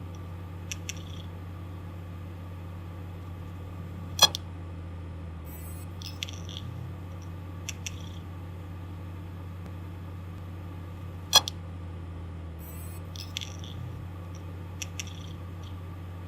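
Damaged hard disk drive running with a steady low hum, broken by two loud sharp clicks about seven seconds apart, with fainter ticks and brief scratchy seeks between. This clicking and scratching is the sign of a failing drive.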